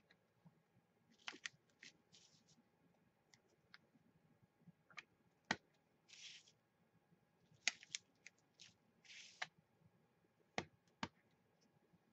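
Faint desk handling sounds: scattered light clicks and taps of clear acrylic stamps and their plastic sheets, with a few short rustles of hands rubbing over a paper bubble mailer.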